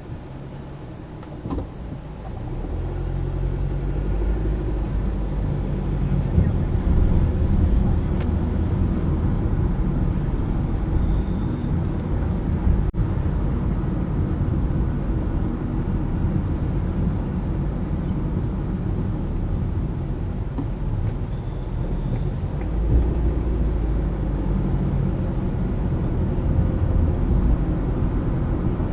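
Car driving: engine and tyre rumble that grows louder about three seconds in as the car gets moving, then holds steady.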